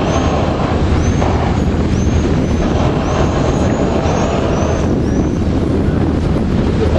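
Harbour ferry's engine running steadily under way, a constant low drone mixed with wash and wind noise on the open deck. Short high chirps repeat over it about twice a second.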